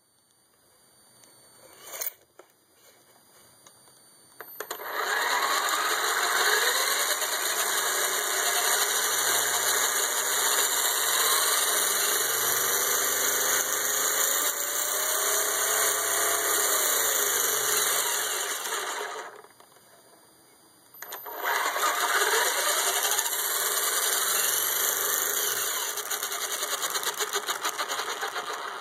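Traxxas Rustler VXL RC truck's brushless motor and drivetrain running in two long runs separated by a short pause, the motor whine rising and falling with throttle, with the clicking noise from the truck that is being investigated.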